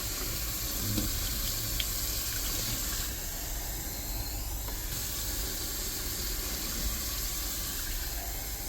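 Water running steadily from a tap into a bath.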